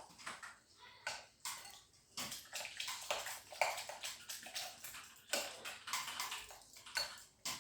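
Chopped onions being stirred together with honey and lemon juice: an irregular run of short, wet stirring strokes, several a second.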